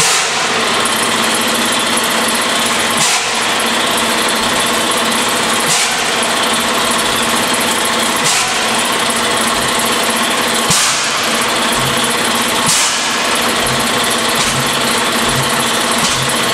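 Propane torch roaring steadily as it heats the head of a large single-cylinder stationary engine whose flywheel is turning slowly. A short puff from the engine comes about every two and a half seconds, with quicker low pulses in the last few seconds.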